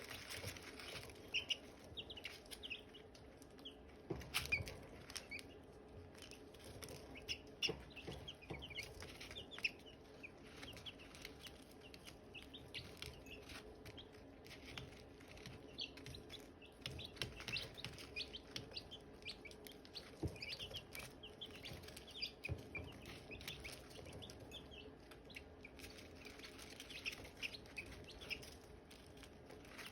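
Silkie chicks peeping: many short, high chirps, overlapping and continual, with a few brief knocks.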